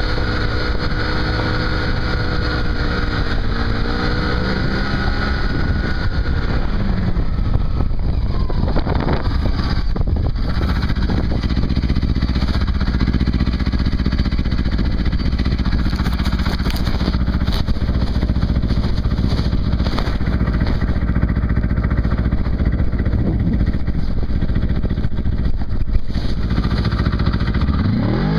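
Snowmobile engine running at speed. Its pitch drops over the first few seconds as it eases off, then it settles into a steady rushing drone of engine and track noise. Right at the end it revs up with a quickly rising pitch.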